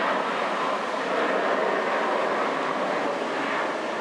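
Airbus A330-300's two GE CF6-80E1A3 turbofans at takeoff thrust during the initial climb: a steady jet roar that fades slowly as the aircraft draws away.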